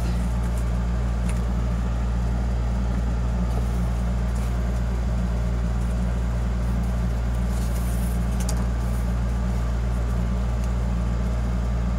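A steady low hum, with a few faint light taps and rustles as a ribbon spool is handled.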